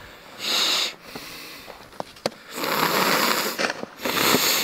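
A person sniffing and breathing close to the microphone: a short, sharp sniff about half a second in, a longer, duller breath around three seconds, and another sharp sniff near the end.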